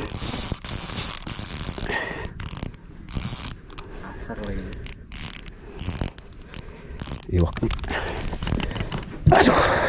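Fishing reel's drag ratcheting in repeated short, high-pitched bursts as a hooked fish pulls line off.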